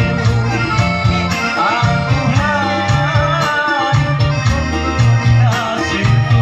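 Music: a song with a singing voice wavering over an instrumental backing with a steady, repeating bass line.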